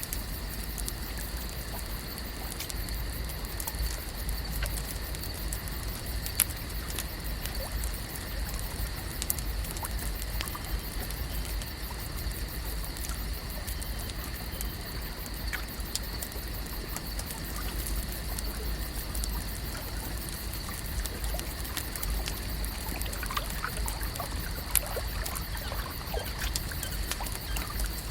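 Lake shore ambience: a steady wash of water with light trickling and lapping, scattered small ticks and clicks, a low rumble underneath, and faint steady high tones.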